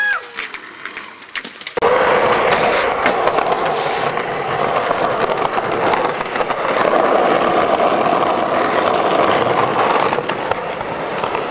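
Skateboard wheels rolling over rough pavement: a loud, steady rolling noise that starts about two seconds in and eases slightly near the end.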